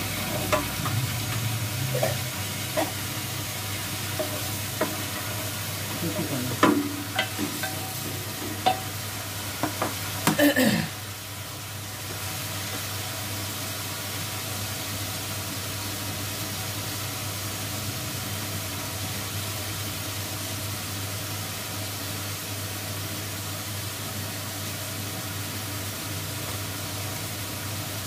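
Meat (gosht) frying in a pot on a gas stove, browning with a steady sizzle. For the first ten seconds or so a spoon stirs and knocks against the pots; after that there is only the sizzle.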